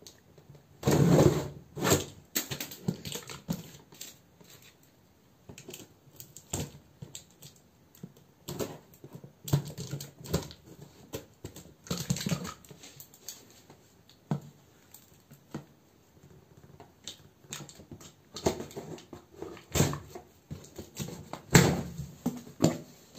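Cardboard printer box being cut open with scissors and its flaps pulled back: irregular scrapes, rustles and knocks of cardboard, loudest about a second in and again over the last few seconds.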